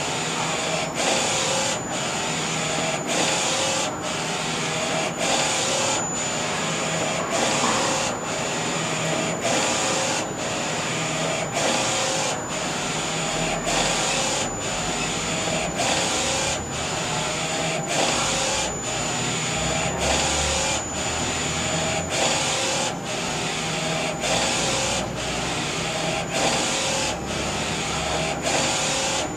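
NC-610A digital textile (T-shirt) printer running, its print-head carriage sweeping back and forth with a swish about once a second over a steady mechanical hum and a thin high whine.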